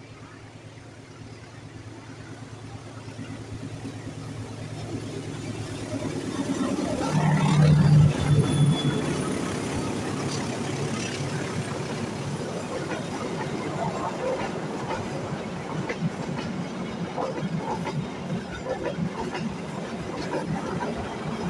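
Diesel-electric locomotive hauling a passenger train approaches, its engine hum growing louder and loudest as it passes about seven to nine seconds in. The coaches then roll past with a steady clatter of wheels over the rail joints.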